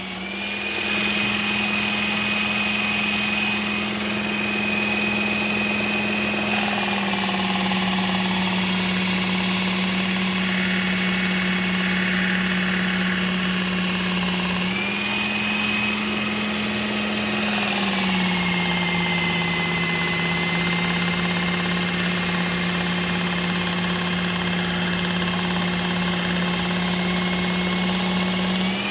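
Work Sharp Ken Onion Edition belt sharpener running with a compound-loaded cloth polishing belt: a steady motor hum with a high whine. It starts up right at the beginning, then the pitch glides down twice and comes back up once in between.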